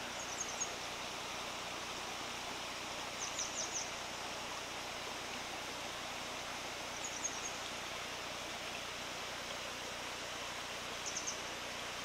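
Grey wagtail singing: four short bursts of three or four quick high notes, a few seconds apart, over the steady rush of a waterfall.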